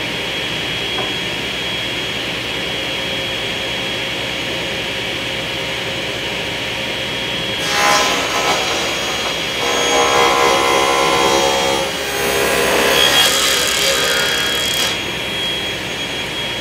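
Table saw running steadily with a thin whine, a Forrest Woodworker blade raised well above the work. About eight seconds in, a 3/4-inch maple panel is fed through in a rip cut, louder and rougher for about seven seconds with a short dip midway, then the saw runs on free.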